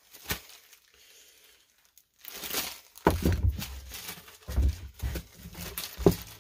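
A small plastic zip bag crinkling and rustling as parts are handled and bagged, louder and busier from about halfway through, with a few dull knocks of things set down or bumped on the workbench.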